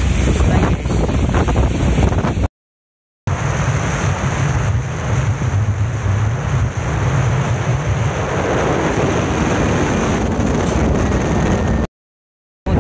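Wind buffeting the microphone on the deck of a moving tour catamaran, over the boat's steady running noise and rushing water, broken by two short silences about two and a half seconds in and near the end.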